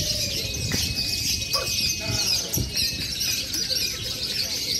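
Many adult lovebirds chirping and trilling at once in a dense, continuous high chatter, with one thin steady tone held for over a second near the middle.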